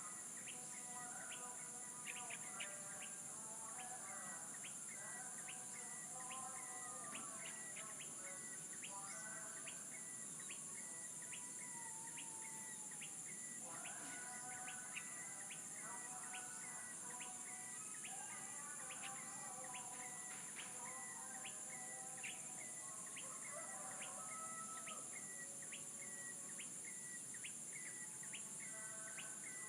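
Several birds singing and calling, one repeating a short high chirp over and over while others sing varied warbling phrases. Underneath runs a steady high insect drone.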